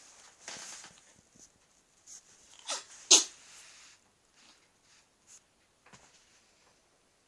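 Pet ferret coughing: two short, sharp hacks close together about three seconds in, the second the louder, after a breathy huff about half a second in.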